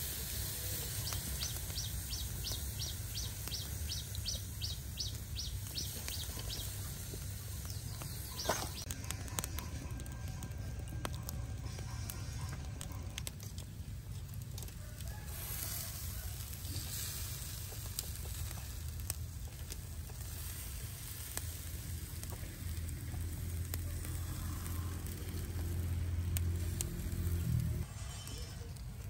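Snake meat grilling over a charcoal fire, with faint sizzling and scattered crackles over a steady low rumble. The rumble swells toward the end and then cuts off abruptly. A bird chirps in a quick, evenly spaced series during the first several seconds.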